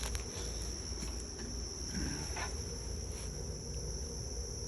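Steady high-pitched chirring of crickets, with a few faint clicks of something being handled.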